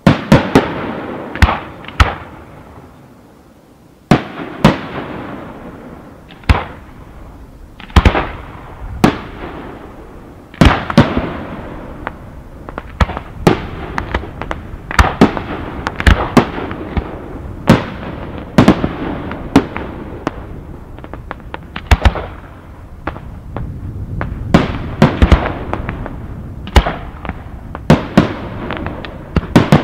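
Fireworks display: aerial shells bursting in a rapid string of sharp bangs, each trailing off in echo, with a short lull a couple of seconds in before the bangs come thick and fast.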